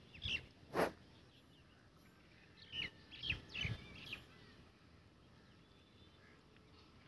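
Small birds chirping in a few short calls over faint outdoor background noise, with one short sharp click about a second in.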